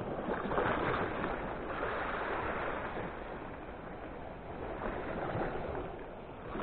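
Sea waves surging and washing against shore rocks: a steady rushing noise that swells and eases several times.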